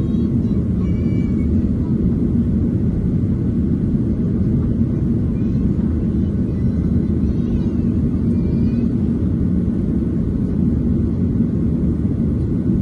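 Steady low rumble of a Boeing 737-800's engines and rushing air heard inside the cabin during the climb after takeoff.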